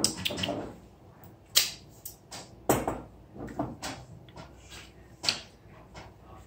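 A metal knife clinking and scraping in a Nutella jar and on a pancake plate as the spread is scooped out and spread: about half a dozen sharp clacks at uneven intervals, with quieter scraping between them.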